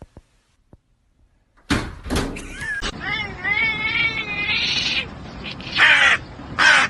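A cat giving a long, wavering, drawn-out meow, starting a little before halfway through, after a near-silent opening. Two short, harsh, noisy bursts follow near the end.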